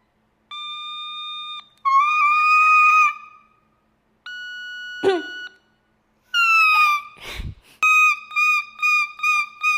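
Otamatone playing high, buzzy, dead-steady notes separated by short gaps, then a note that slides downward. Near the end one pitch is pulsed on and off about three times a second. There is a brief low thump, like handling noise, partway through.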